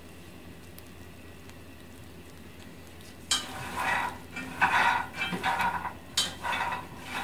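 Shelled peanuts being stirred as they roast, making dry rattling, scraping strokes that start about three seconds in and repeat roughly once a second. Before that there is only a faint steady hiss with a few light ticks.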